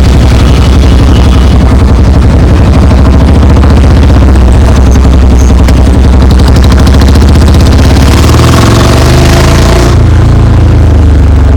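Royal Enfield Bullet Standard 350's single-cylinder engine running loud through an aftermarket bend-pipe exhaust while being ridden, its note changing about eight seconds in.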